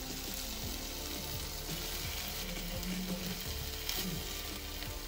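Fenugreek (methi) muthiya sizzling steadily in oil in a nonstick frying pan as they are turned over with a wooden spatula, with faint taps of the spatula.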